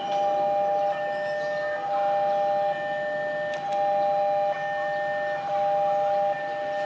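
Railway level-crossing warning alarm sounding: a steady electronic tone with a higher note switching on and off, so the sound rises and falls about once a second, signalling an approaching train.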